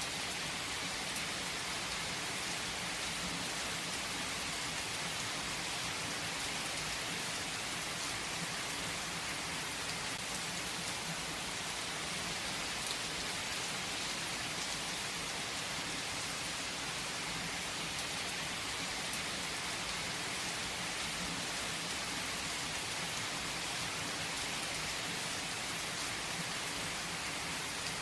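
Heavy rain falling steadily on a tree's foliage, an even hiss with scattered drop taps.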